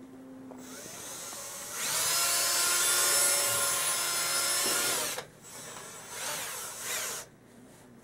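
Cordless drill spinning a heat exchanger tube brush in an outdoor wood boiler. The motor winds up, runs steady and loud for about three seconds, stops, then gives two shorter runs that speed up and slow down.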